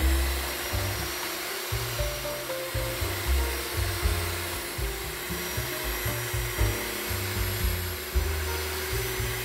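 Electric hand mixer running steadily, its steel beaters whisking a cream mixture in a glass bowl, with a constant motor hum.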